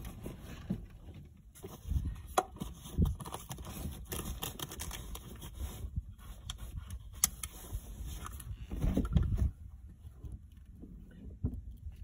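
Handling noise as a rear-facing infant car seat is fitted and its seat belt pulled and threaded: scattered clicks, knocks and rustling, with a heavier thump about nine seconds in.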